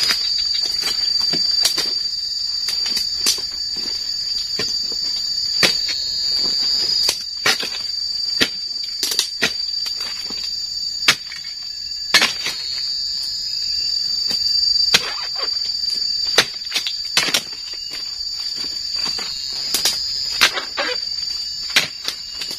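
Steady high insect drone, cut by repeated sharp chopping knocks, roughly one a second and irregular, as a long-handled dodos pole chisel is driven into oil palm frond bases to cut them off.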